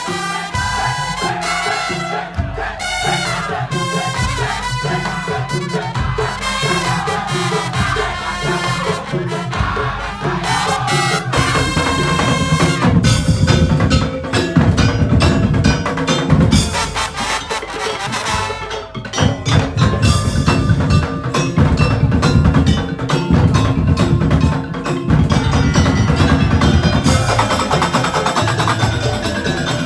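Madurese tong-tong percussion ensemble playing: fast rhythmic wood-block strikes with tuned mallet percussion and drums. The low drums grow heavier about a dozen seconds in.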